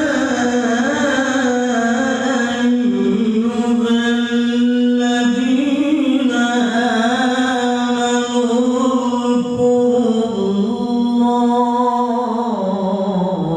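A male qori reciting the Qur'an in melodic tilawah style: one long, unbroken phrase held on a high pitch with wavering ornaments, sliding lower near the end.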